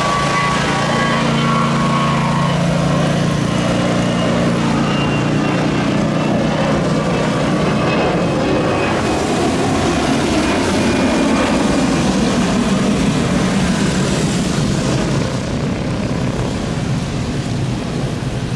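Airbus A320 jet engines at takeoff power as the airliner lifts off and climbs away: loud, steady jet noise with whining fan tones that fade over the first few seconds, the sound easing slightly as the aircraft climbs out.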